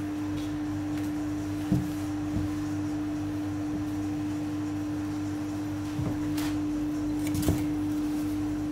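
A steady hum at a single pitch, with three light knocks from handling on the table.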